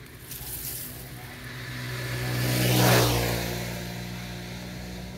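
A motor engine passing close by, growing louder to a peak about three seconds in and then fading, over a steady engine hum.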